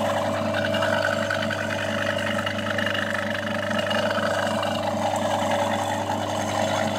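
Three-phase 4A71A4U3 induction motor (0.55 kW), delta-connected, running unloaded with a steady, even hum. It runs normally, the sign that the starts and ends of its windings were identified and connected correctly.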